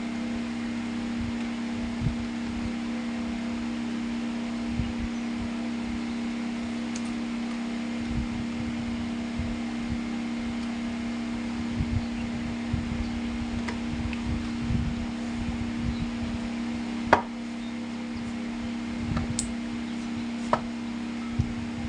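A small 12 V DC motor runs with a steady hum, while low knocks from handling come and go. There are a few sharp clicks, the loudest about 17 seconds in.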